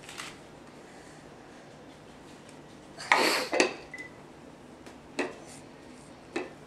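Small toy pots and lids knocking and clattering in a few separate bursts, the loudest about three seconds in.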